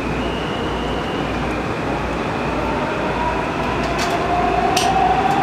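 Metro railcar heard from inside the car as it pulls out of the station and gathers speed. Steady running noise throughout; from about three seconds in, a whine from the traction motors rises in pitch as the train accelerates, with a couple of sharp clicks near the end.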